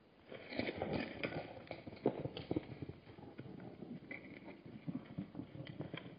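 Hooves of Hartmann's mountain zebras striking the ground as they move off, a quick irregular run of knocks that starts just after the beginning, is busiest in the first couple of seconds and thins out toward the end.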